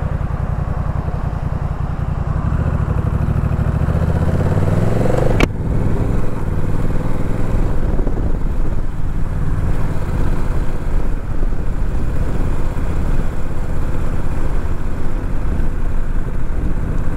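Honda Rebel 1100's parallel-twin engine pulling away from a stop. It runs steadily, then rises in pitch as the bike accelerates, drops suddenly about five seconds in as the DCT gearbox shifts up, and runs on steadily with road and wind noise.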